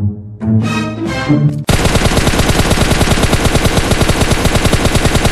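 A short vocal sound, then about a second and a half in, a long burst of rapid automatic gunfire sets in: a fast, even string of loud sharp shots. It is a machine-gun sound effect.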